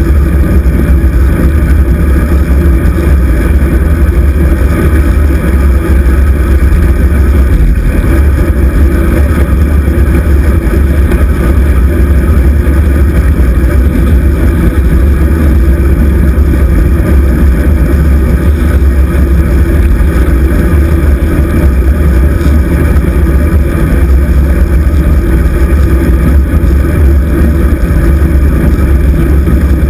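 Steady, heavy wind rumble on the microphone of a camera moving along a road, loud and deep throughout.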